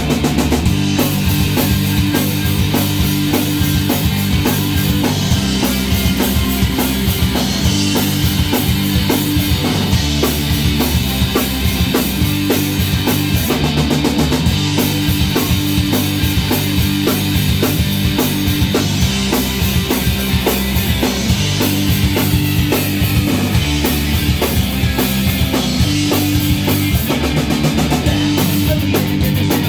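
Rock band playing an instrumental passage: a full drum kit and guitar, loud and steady, with no singing.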